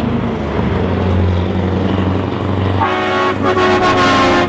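Scania tanker truck's diesel engine running with a low rumble as it drives, then its air horn blows, a steady multi-tone blast from about three seconds in lasting about a second and a half.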